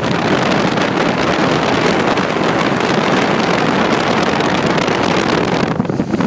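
Wind buffeting the microphone over the steady rush of a motor boat under way, its engine and hull running through the water. The wind thins briefly near the end.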